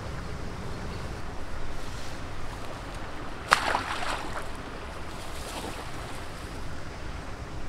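Wind on the microphone throughout. About halfway through, a sudden splash as the landing net is dipped into the lake to release a small pike, with water running off the net as it is lifted out.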